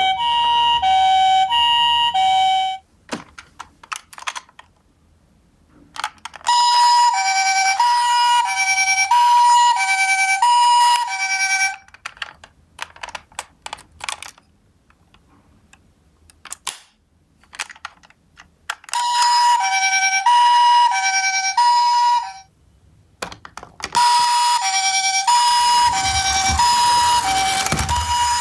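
Toy ambulances' electronic sirens playing the Japanese two-tone high-low "pee-poh" wail, each note about half a second. It comes in four spells, separated by quieter gaps with scattered clicks and taps of the toy cars being handled.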